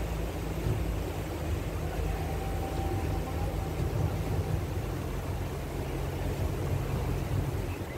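Steady low drone of a harbour ferry's engine under way, with a constant rushing noise of wind and water over it.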